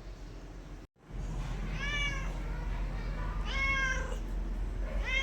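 A cat meowing: two drawn-out meows about a second and a half apart, with a third starting at the very end, over a steady low hum. The sound cuts out abruptly for a moment about a second in.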